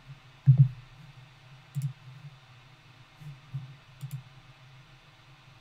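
Computer mouse clicks: a sharp click about half a second in, another near two seconds, then a few fainter ones spaced over the next couple of seconds, over a low steady hum.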